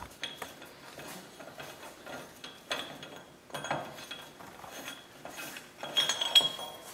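Steel axle nut socket turned by hand on a Toyota Land Cruiser 100 Series front spindle nut, which is only hand tight. It makes irregular light metallic clicks and clinks as the nut spins off its threads, with a louder ringing clink about six seconds in.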